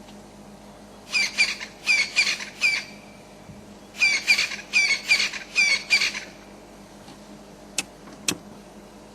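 A bird calling in two bursts of harsh, repeated squawking notes, about three to four a second, each burst lasting about two seconds. Two sharp clicks follow near the end.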